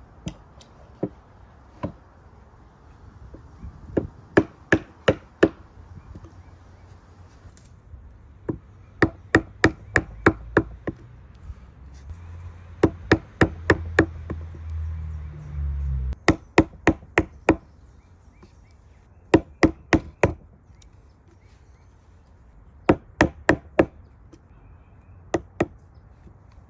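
A mallet driving a chisel into a cypress post to cut a bevel: quick runs of four to six sharp strikes with short pauses between. A low rumble sits under the strikes through the middle.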